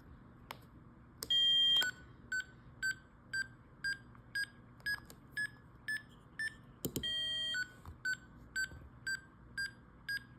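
Small electronic buzzer on a hobby-kit sound chip running its hearing-test program. A longer multi-tone beep is followed by a run of short beeps about two a second, each a little higher in pitch. Then comes another long beep, and the run starts over from the lower pitch.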